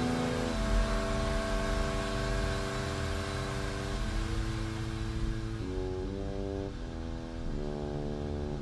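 Background music of slow, held chords that change every one to two seconds, over the steady rush of a waterfall that fades out about halfway through.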